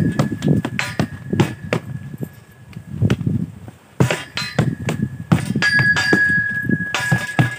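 Sharp, irregular knocks of rattan arnis sticks striking during stick drills, over background music with a held note that comes and goes.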